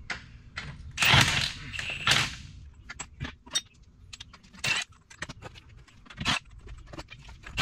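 Cordless impact wrench spinning loose wheel nuts off the front wheel of a 1988 Ford F700 truck in two short bursts about a second apart, followed by scattered metallic clinks as the loose nuts and wheel wedges are handled.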